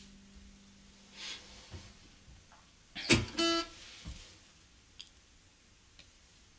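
The guitar's last chord rings out and fades away. About three seconds in comes one sharp knock, then a brief high pitched squeak, and later a couple of faint ticks.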